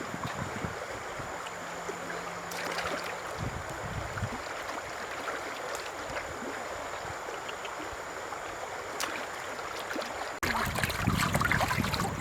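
Steady rush of running water. About ten seconds in it cuts abruptly to louder, choppier water noise with scattered clicks.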